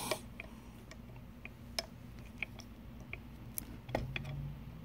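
Faint, scattered clicks and ticks of a metal 4-prong rhinestone rivet being pushed by hand into the steel top die of a rivet press, with a few sharper clicks among them.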